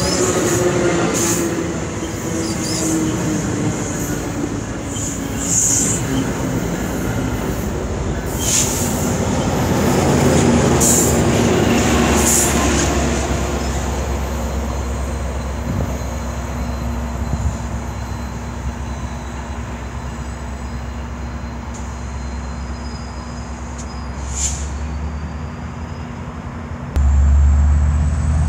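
AMT commuter train passing at speed: bilevel coaches rolling by, with brief high wheel squeals over the first dozen seconds, then the push-pull diesel locomotive at the rear going by with a steady low engine drone that fades as the train pulls away. A sudden louder low rumble comes in near the end.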